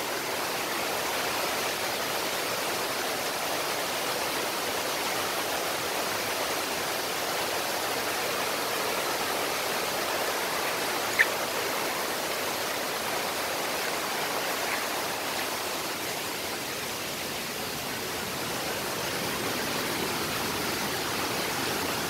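Water rushing over rocks in a forest stream, a steady even rush, with one sharp click about eleven seconds in.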